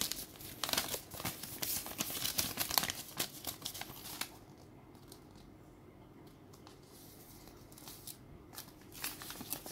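Paper crinkling and crackling as a folded, crumpled instruction leaflet is unfolded and handled. The sharp crackles are dense for about the first four seconds, die down to a quieter stretch, and pick up again near the end.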